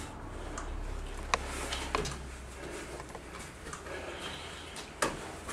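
Two grapplers rolling on foam mats: bodies and gi cloth shifting and rubbing, with a few sharp thumps or slaps, the loudest about five seconds in, over a low steady hum.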